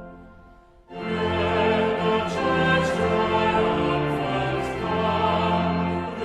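Hymn sung with organ accompaniment: a held chord dies away, there is a brief gap about a second in, and then the singing and organ start again on the next line or verse.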